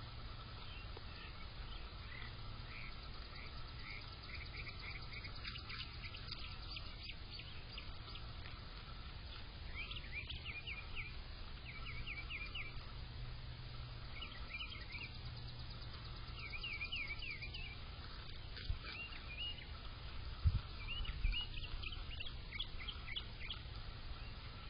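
Songbird chirping: short runs of quick high notes repeated every couple of seconds, over a steady low hum. A few soft knocks come near the end.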